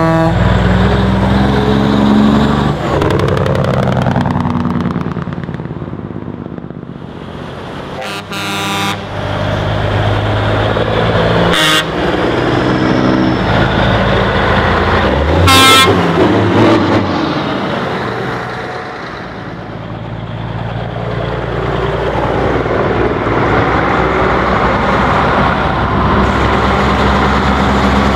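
Trucks' diesel engines running as they drive past one after another, swelling and fading. Truck horns sound three times: a blast about eight seconds in, a short toot a few seconds later, and the loudest blast about halfway through.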